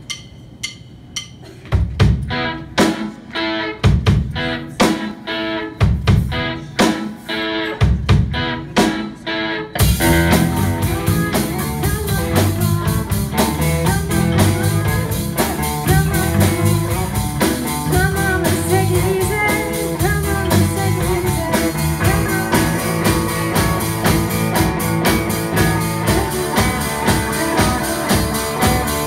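Live rock band of electric guitars, electric bass and drum kit playing. The riff comes in short separate stabs with gaps at first, then the whole band comes in and plays steadily about ten seconds in.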